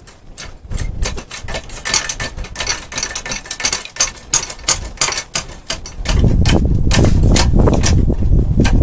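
Rapid run of sharp clicks, several a second. About six seconds in, a loud, steady, low rumbling noise starts and continues.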